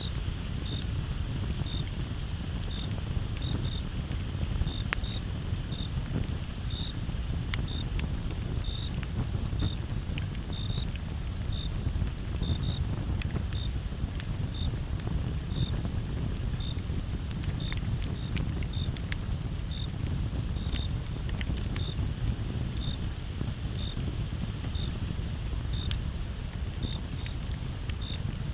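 Campfire crackling with scattered sharp pops over a steady low rumble. Crickets chirp in short, evenly spaced notes about once or twice a second over a steady high hum.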